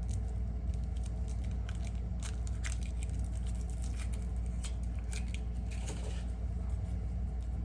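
A Kinder Surprise egg being unwrapped and opened by hand: foil crinkling, with scattered small cracks and clicks of the chocolate shell and plastic capsule. A steady low hum runs underneath.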